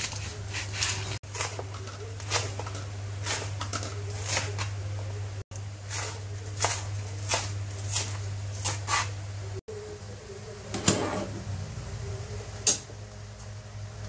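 Kitchen knife chopping napa cabbage and leafy greens on a plastic cutting board: repeated sharp taps, about one or two a second, which stop about two-thirds of the way through. Two single knocks follow near the end, over a low steady hum.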